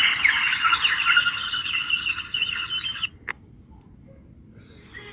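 A dense chorus of many small birds chirping and twittering together, which cuts off abruptly about three seconds in. A single short call follows, then fainter chirping.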